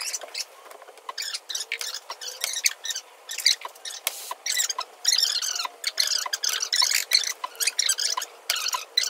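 Fast-forwarded bodyshop audio of spot dent-puller work: voices sped up into high squeaky chatter, mixed with rapid sharp clicks of the tools.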